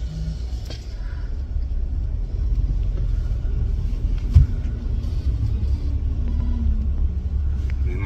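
Steady low rumble of wind and a moving vehicle on a phone's microphone, with one sharp thump about four and a half seconds in.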